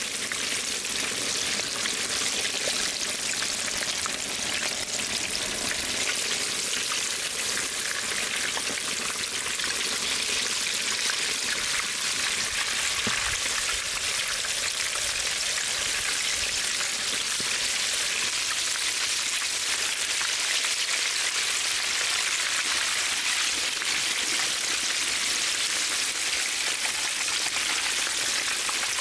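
Whole chickens deep-frying in hot oil in a cast-iron cauldron: a steady, dense sizzling hiss.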